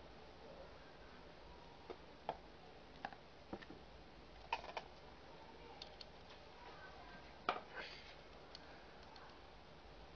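Light plastic clicks and taps as a glasses-type watch repair magnifier is handled and its loupes and hinged mounts are moved: about a dozen scattered clicks, the sharpest about four and a half and seven and a half seconds in.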